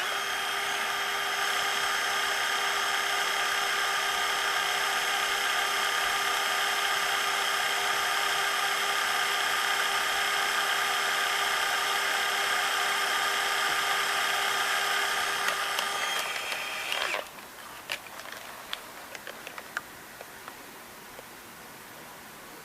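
Sony CCD-TR70 8mm camcorder's tape transport rewinding the cassette: a steady motor whine that stops suddenly about seventeen seconds in, followed by a few light mechanical clicks.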